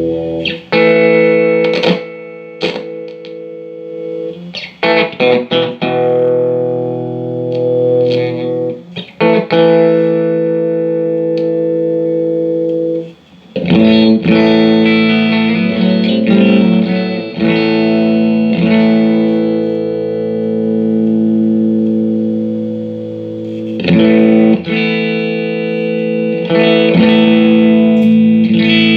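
Electric guitar played through a Mesa Boogie Dual Caliber DC-3 tube amplifier, being sound-tested after a repair: strummed chords left to ring out, with a brief gap about 13 seconds in.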